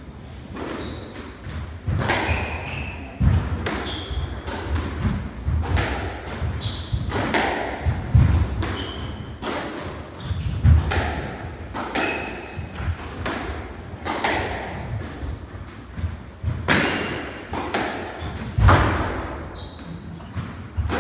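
Squash rally: the ball knocking off rackets and the court walls, sharp knocks about once a second, with short high squeaks of players' shoes on the wooden court floor in between.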